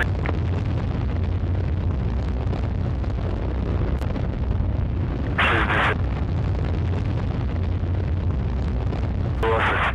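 Soyuz-2.1a rocket engines running during ascent: a steady deep rumble. Two short bursts of hissing, higher-pitched noise break in, about five and a half and nine and a half seconds in.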